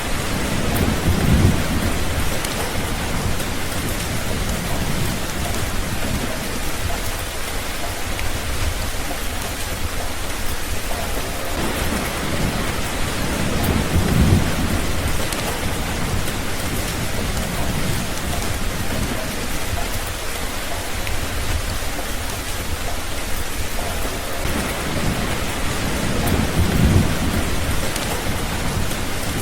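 Steady rain falling, with low rolls of thunder rumbling three times: near the start, about halfway through, and near the end.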